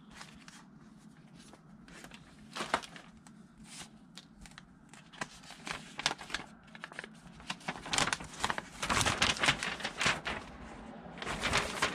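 Handling noises from a small plastic RC truck body and transmitter: scattered clicks and taps of hard plastic with some crinkling. They come thicker and louder from about eight seconds in, as the shell is set back onto the chassis.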